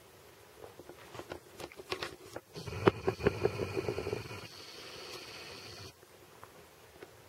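A camera's zoom motor whirring with a steady high whine for about three seconds, starting about two and a half seconds in and cutting off suddenly. Irregular clicks and taps come before it and during it.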